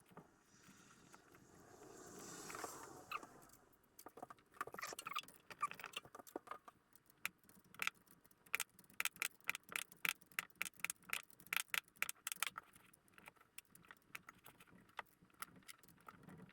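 Faint, quick metallic clicks and clinks of hand tools on the engine as the distributor is fitted and its hold-down clamp is snugged, after a brief rustling scrape about two seconds in.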